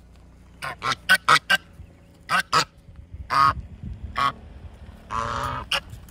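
Domestic geese honking: a quick run of about five short honks in the first second and a half, then spaced single honks, and a longer, harsher call about five seconds in.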